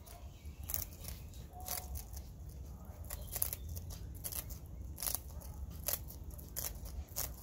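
Sulphur-crested cockatoo biting and crunching a biscuit held in its foot: sharp, irregular crunches, about one or two a second.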